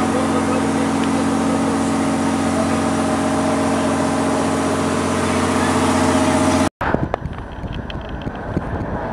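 Boat's engine running steadily, heard from on board over the rush of water. It cuts off abruptly about 6.7 s in, and gusty wind buffeting the microphone follows.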